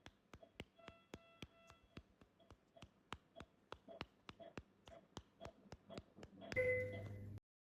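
Faint, steady light pats, about three a second, on a newborn's back to bring up a burp, with soft repeating beeps behind them. Near the end a louder brief rustling sound cuts off abruptly.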